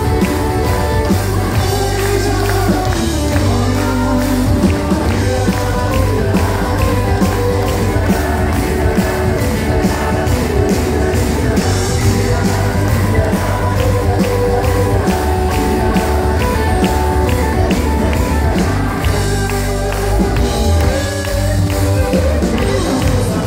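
Live band playing upbeat country-rock: acoustic guitar, electric guitar, fiddle and a drum kit keeping a steady beat over a full bass.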